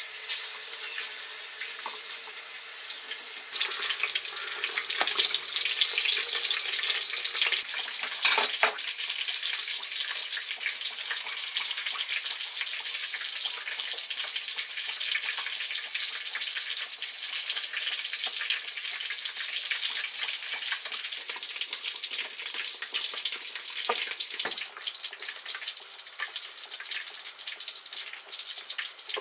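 A slab of pork frying in hot oil in a wok: a steady sizzle full of crackling spatters. It is loudest between about four and eight seconds in, then settles to an even fry, with a couple of sharp clicks.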